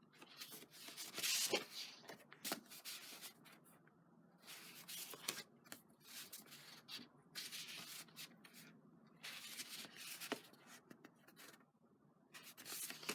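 Sheets of sturdy card stock being handled and slid against one another: faint, irregular rustling and rubbing of paper, with a few light taps.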